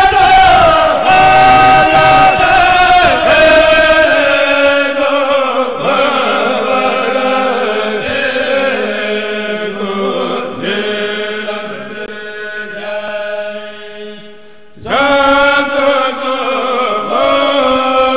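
Mouride kourel, a group of men chanting a khassida (Sufi devotional poem) together without instruments, in long drawn-out melodic lines. The chant dies away about 14 seconds in, then the group comes back in loudly with a new phrase about a second later.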